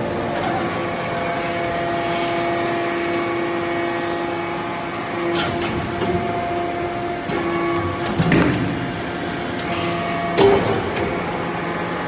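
Hydraulic briquetting press for aluminium chips running, its pump unit giving a steady hum, with a few sharp knocks as the press cycles.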